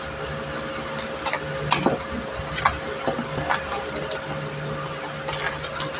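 A cardboard box being pulled open by hand and the chocolate boxes inside handled: irregular crinkles, taps and rustles of cardboard packaging, over a steady faint hum.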